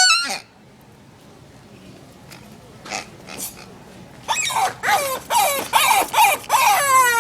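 A noise-making dog toy giving its recorded animal squeal: a quiet stretch, then from about four seconds in a quick run of short squeals, each dropping in pitch, running into one longer falling squeal near the end.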